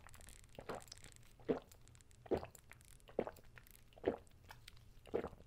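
A person gulping a drink from a glass: about six swallows, a little under a second apart.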